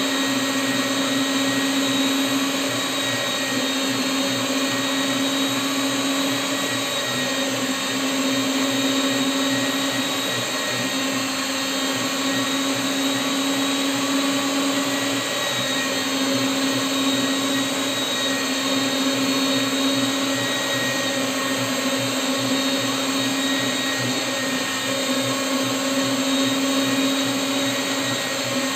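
Electric meat grinder running steadily as it pushes kibbeh mixture through its plate, its motor giving a continuous hum with a steady whine that dips briefly a few times.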